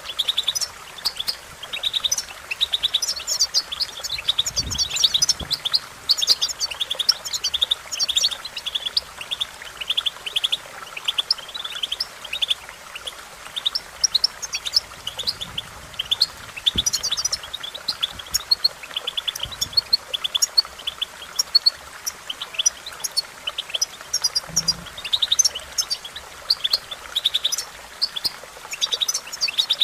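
European goldfinch singing: a long run of rapid, high twittering notes that goes on almost without a break.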